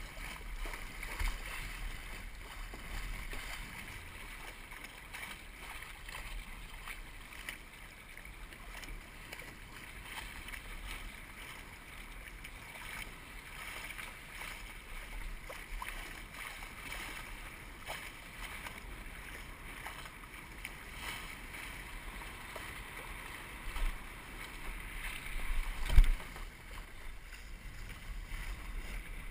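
Steady rush of wind and water on a Musto Skiff racing dinghy under sail, with a few knocks and one loud thump near the end.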